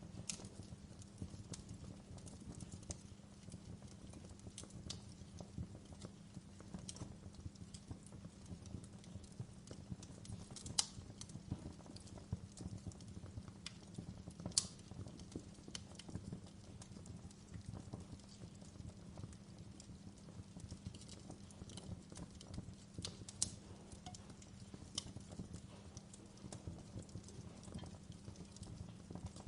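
Wood fire crackling: a steady low noise of burning with irregular crackles and sharp pops, the loudest about eleven and fifteen seconds in.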